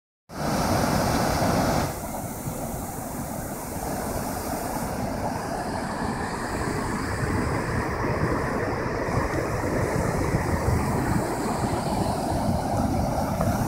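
Steady roar of a waterfall in flood, with wind rumbling on the microphone. A louder stretch of noise opens it and drops back after about two seconds.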